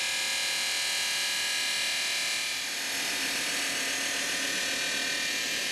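Electric welding arc burning steadily: a continuous buzzing hiss with a fine whine through it.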